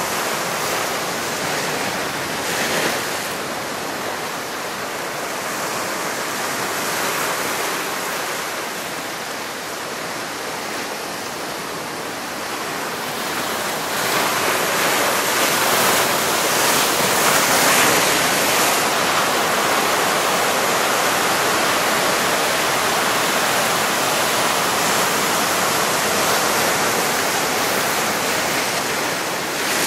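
Sea surf breaking and churning over a rocky shore, a steady rush of white water that gets louder about halfway through as bigger waves come in.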